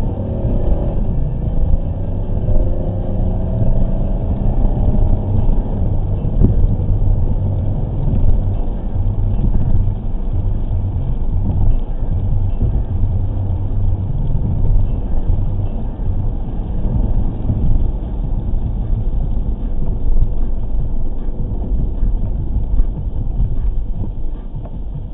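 Car engine and road noise heard from inside the cabin while driving on wet pavement: a steady low drone, with the engine note rising over the first few seconds as the car picks up speed.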